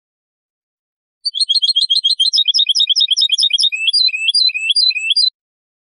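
European goldfinch singing: starting about a second in, a fast twittering run of short high notes, then a few slower, lower notes, stopping about a second before the end.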